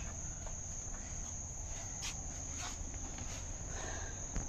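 Crickets chirping in a steady high-pitched trill, with a few soft clicks.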